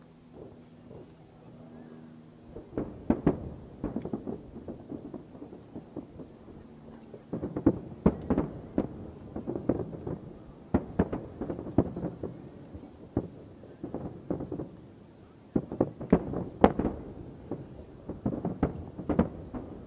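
Large aerial firework shells bursting in rapid succession: dense volleys of booms and crackles start about three seconds in and come in three waves, with short lulls between.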